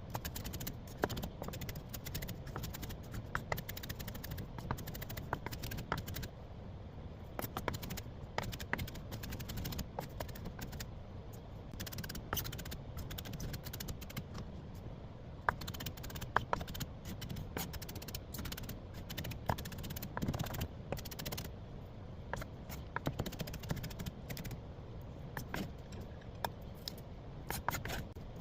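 Kitchen utensils and dishes clicking, tapping and scraping at irregular moments while leftover rice is prepared for frying, over a steady low hum.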